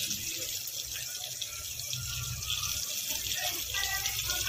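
Steady hiss of a pot of pigeon-pea curry cooking over a lit gas burner. Faint voices come in near the end.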